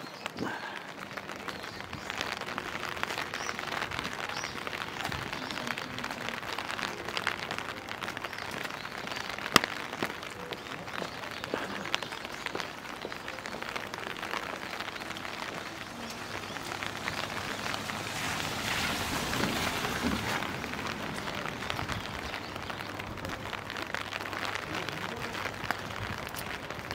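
Steady rain: an even hiss dotted with many small drop ticks, one sharper tick about ten seconds in and a slight swell in the hiss near twenty seconds.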